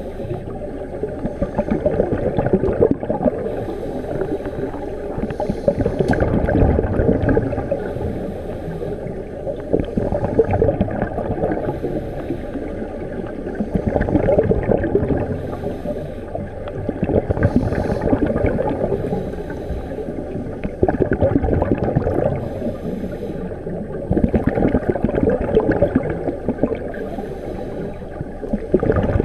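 Scuba breathing heard underwater: a regulator's exhaled bubbles gurgling and rumbling, swelling and easing with each breath about every three to four seconds.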